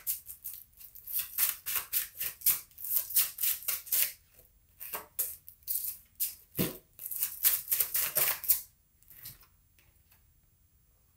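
A deck of tarot cards shuffled by hand: a quick run of soft papery strokes, several a second, with one heavier knock partway through. The shuffling stops about three quarters of the way in, and the rest is near quiet.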